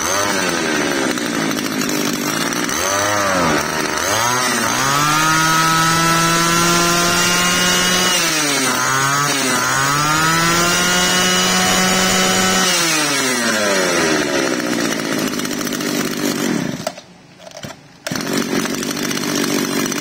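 Mitsubishi T180 33cc two-stroke brush cutter engine running and revved twice to a high, steady whine, then let back down each time. About seventeen seconds in it briefly cuts out and picks up again, which the seller puts down to fuel not yet having come up to the engine.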